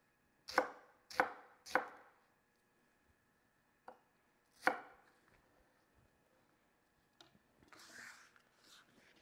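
Chef's knife slicing a red onion on a wooden cutting board: sharp knocks of the blade hitting the board, three in quick succession, then two more about four seconds in. Softer rustling follows near the end.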